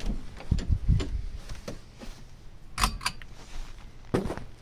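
Handling noises: scattered knocks and clicks, with a few low thumps about half a second to a second in and a sharp click near three seconds.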